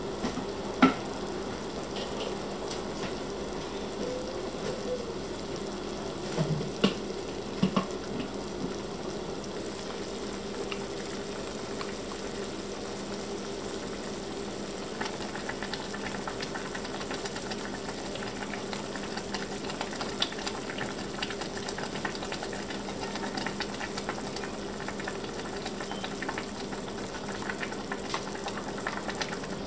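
A pot of soondubu-jjigae (spicy soft tofu stew) bubbling at a steady simmer, with a few light knocks in the first eight seconds.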